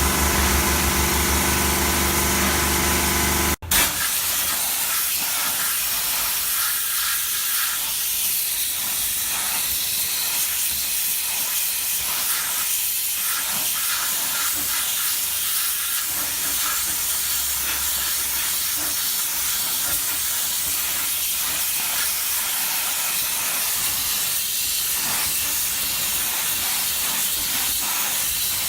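High-pressure washer (350 bar) with a sandblasting nozzle: the machine's pump drone runs under a jet hiss for the first few seconds, then, after a sudden break, a steady loud hiss of the high-pressure jet spraying.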